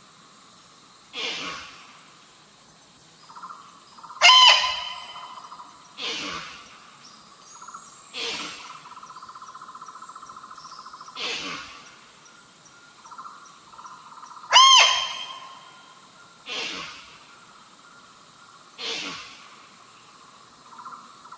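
Female muntjac (barking deer) giving short, sharp barks, eight in all, one every two to three seconds, two of them louder than the rest. A steady high hiss and an on-and-off thin hum run underneath.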